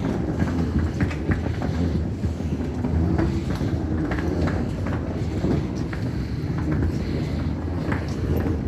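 Hard wheels of rolling luggage running over stone paving: a continuous low rumble broken by irregular clacks as the wheels cross the joints, with footsteps.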